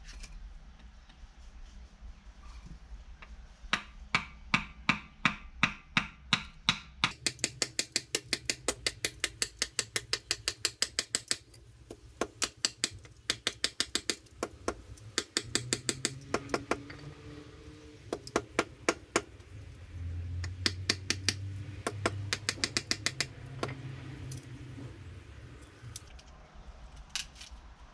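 A wooden baton knocking repeatedly on the spine of a Ruike Jager F118-G fixed-blade knife, driving it down through a branch to split it lengthwise. The sharp knocks come in runs with pauses between, at times about five a second.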